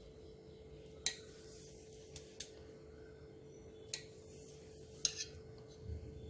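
Kitchen knife cutting through a soft steamed sandesh and clicking against the steel plate beneath, about five sharp clicks spread over several seconds.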